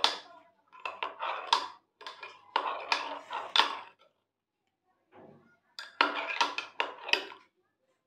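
Metal spoon stirring milky coffee in a ceramic mug, clinking against its sides in three quick bouts of rapid clinks with short pauses between.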